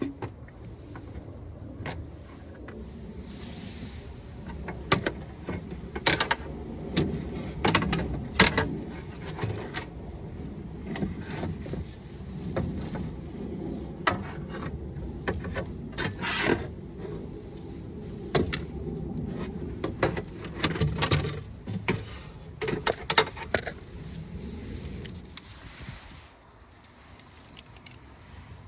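Irregular clicks, knocks and light metal rattles of a car window regulator and motor assembly being handled and worked inside a door.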